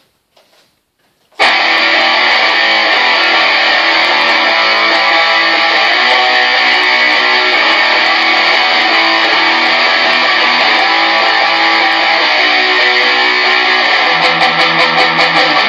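Electric guitar, a sunburst Stratocaster-style, strummed loudly, coming in suddenly about a second and a half in. Near the end the playing turns to steady repeated strums.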